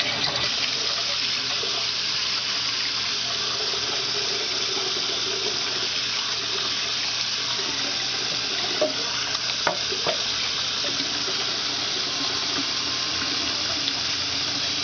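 Kitchen sink faucet turned on and running steadily, water pouring into a pot in the sink to fill it. A few light knocks about nine to ten seconds in.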